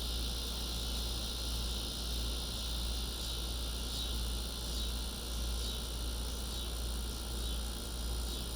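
Loud chorus of cicadas droning steadily, swelling and easing every second or two, over a steady low rumble.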